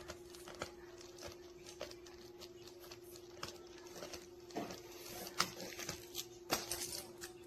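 Dog mouthing and chewing a stuffed plush octopus toy with its squeaker torn out: scattered soft clicks and scuffs, faint, with a few sharper ones near the end, over a steady low hum.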